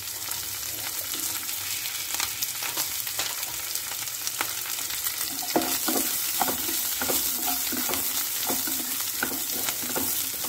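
Chopped onions and green chillies sizzling in hot oil in a nonstick pan. About halfway through, a wooden spatula starts stirring them, scraping and knocking against the pan again and again.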